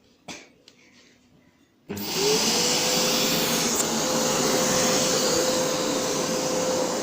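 Vacuum cleaner switched on about two seconds in, its motor whine rising briefly and then running steadily. A short click comes just before, in near silence.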